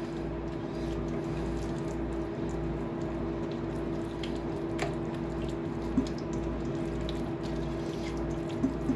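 Electric hand mixer running at a steady speed, its motor humming as it beats ricotta and egg together in a bowl, with a couple of light clicks from the beaters about five and six seconds in.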